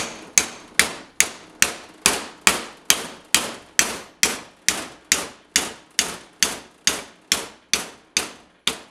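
A small steel sledge hammer strikes the steel cross pin (pinion shaft) of a limited-slip differential carrier over and over, driving it in past its retaining ring. The blows are metal on metal, sharp and ringing, coming evenly at about two and a half a second.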